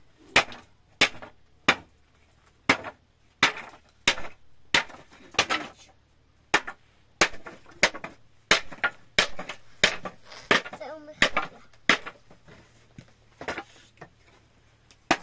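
A series of sharp knocks or strikes, roughly one to two a second and unevenly spaced, with short voice-like sounds between some of them.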